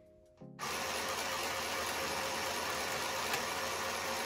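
Sewing Genie battery-powered mini sewing machine running off its push button, its small motor starting about half a second in and then running steadily and loudly.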